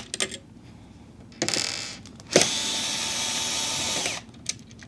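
Cordless electric screwdriver running in short bursts: a brief whir about a second and a half in, then a steady run of nearly two seconds that stops, followed by a few clicks. It is undoing screws on a CPU cooler mount that was fitted the wrong way round.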